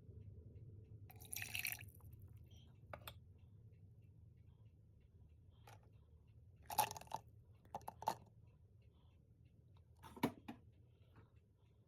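A few scattered clicks and knocks of things being handled, over a faint low hum; the sharpest come about seven, eight and ten seconds in, with a short rustle-like patch just after the first second.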